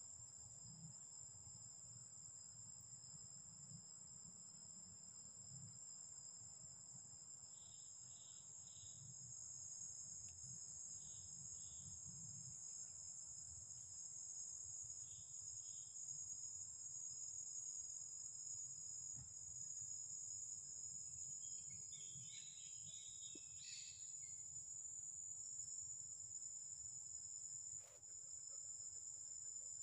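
Forest insects droning in a steady, high, thin whine, with short bursts of chirping at about 8, 11 and 15 seconds and a busier flurry of chirps a little after 22 seconds. A single sharp click comes near the end.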